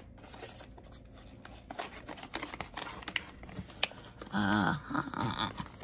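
Plastic packaging rustling and clicking in a run of small irregular snaps and crinkles as it is handled and cut open with scissors. A short hummed voice sounds about four and a half seconds in.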